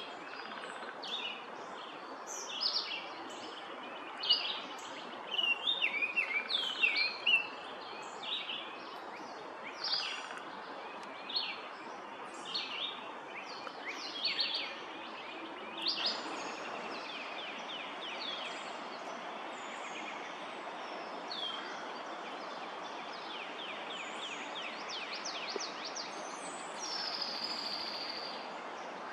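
Several wild songbirds singing and calling, a mix of short chirps, whistled notes and a quick trill, over a steady background hiss.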